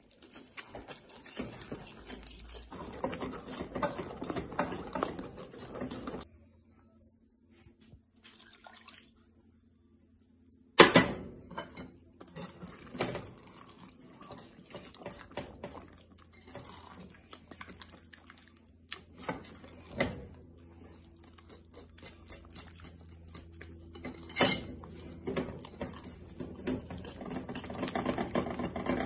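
Wire whisk beating a wet batter in a glass bowl: quick clicking and scraping of the wires against the glass with sloppy wet mixing sounds, in spells. There is a short quiet stretch, then one sharp knock about eleven seconds in, then more whisking.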